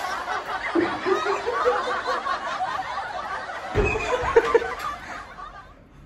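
A man chuckling and laughing, in fits that die away near the end.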